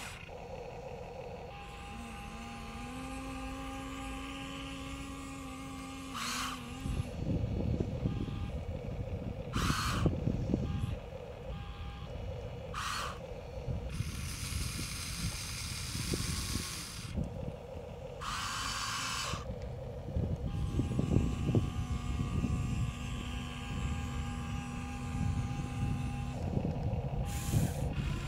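Small electric motors of a radio-controlled toy excavator whining and changing pitch as it works its arm and bucket, with crackling and scraping as sand is scooped and dropped into a toy dump truck's bed, and a few short hissing bursts.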